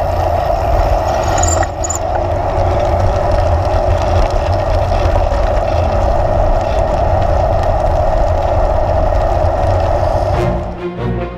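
Steady wind and rolling noise picked up by a bicycle-mounted action camera while riding, a loud rushing over a low rumble, with a short high squeak about two seconds in. Near the end the riding noise drops away and music begins.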